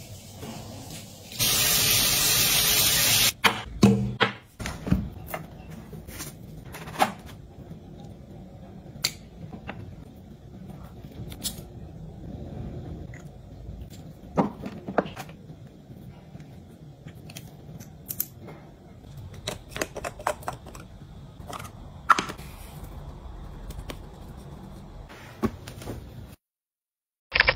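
Close-up handling sounds: scattered light taps and clicks of hands on cosmetic containers and packaging. A loud hiss lasts about two seconds near the start.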